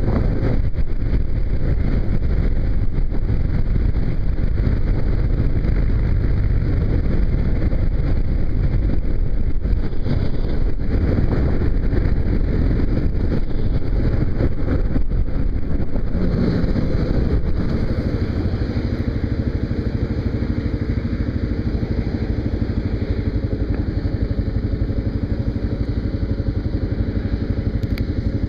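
Kawasaki KLR single-cylinder motorcycle engine running under way, with heavy wind rush on the microphone. A little over halfway through, the wind lessens and the engine's steady tone comes through more clearly.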